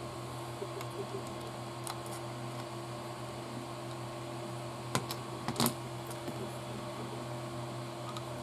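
Small model-kit parts being handled and pressed into place: a few light clicks and taps, the loudest pair about five seconds in, over a steady low hum.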